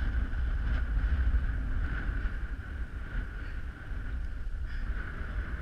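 Strong wind buffeting the microphone in gusts over choppy water, with a faint steady tone underneath.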